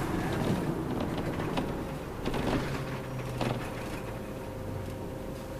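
Inside a city route bus while riding: a steady engine and road hum with short rattles and knocks from the cabin, and a thin steady whine coming in about halfway through.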